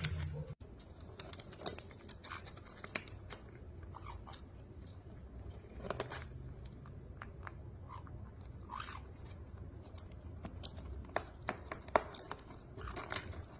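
Caique parrot biting and tearing at a paper piañata, making faint scattered crunches and ripping clicks.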